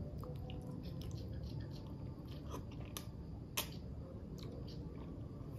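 A person eating ramen noodles with chopsticks: soft chewing and small scattered mouth clicks, with one sharper click about three and a half seconds in, over a low steady hum.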